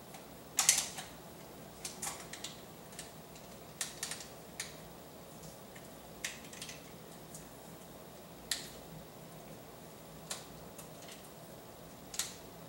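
Scattered short rustles and clicks of a flexible tape measure being handled, pulled and adjusted around a bare waist, the loudest about half a second in and another near the end.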